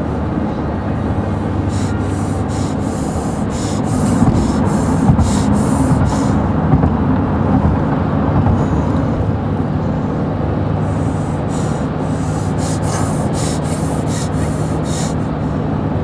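Car cabin noise while driving: a steady low rumble and hum, with runs of short rubbing strokes in the first half and again near the end.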